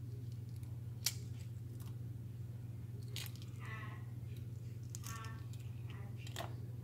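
Shell being peeled off a hard-boiled egg by hand: soft crackling and squishing, with one sharp crack about a second in and a few smaller clicks later. A steady low hum runs underneath.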